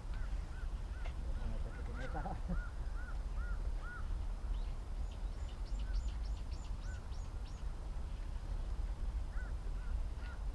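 Birds calling: a run of short rising-and-falling whistled notes, about two a second, then a quick series of thin high falling notes in the middle and a few more whistled notes near the end, over a steady low rumble.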